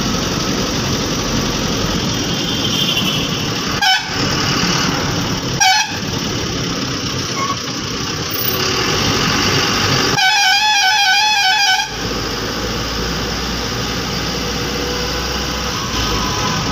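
Ashok Leyland bus engine and road noise heard from inside the cab while driving, with two short horn beeps about four and six seconds in and a longer warbling musical horn about ten seconds in, lasting nearly two seconds.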